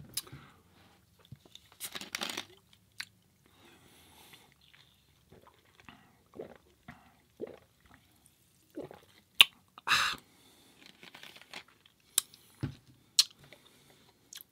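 Close-miked eating and handling sounds at a burrito meal: sparse chewing and crunching with scattered small clicks and crinkles, and a louder crackling burst about ten seconds in.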